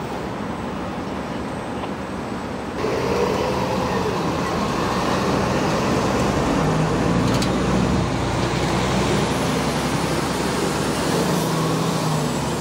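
City street traffic noise with vehicle engines running, a steady wash that steps up louder about three seconds in.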